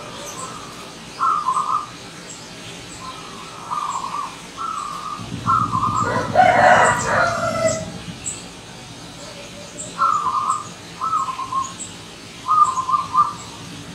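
Zebra dove (perkutut) cooing: short phrases of quick staccato notes, repeated every second or two with a gap in the middle. About five seconds in, a louder, lower call lasting about two seconds overlaps the cooing, and faint high chirps run throughout.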